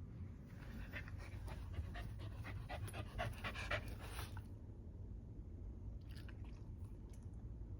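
Shiba Inu dog panting in quick, rhythmic breaths for about four seconds, then fading to a couple of faint breaths, with a low steady hum underneath.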